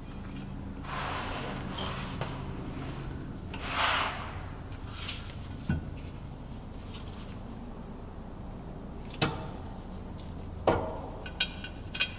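A metal differential cover being fitted by hand onto the axle housing: two scraping rubs in the first four seconds, then a few sharp metallic clicks and taps as the cover and its bolts are set in place. A low steady hum lies underneath.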